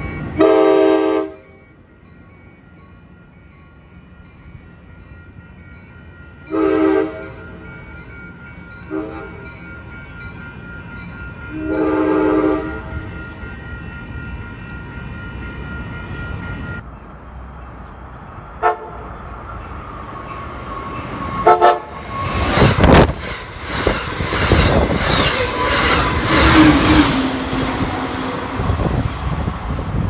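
Amtrak Surfliner cab car horn sounding a multi-note chord in four blasts, two longer, one brief and a final longer one, the rhythm of a grade-crossing signal. After a cut it gives two brief toots, then a train runs past close by with a loud rushing rumble and clicking wheels.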